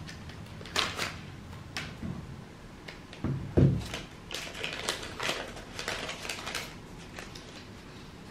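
Clicks, knocks and rustling from small objects being handled, such as a leather pouch, with a heavier thump about three and a half seconds in and a quick run of clicks and rustles after it.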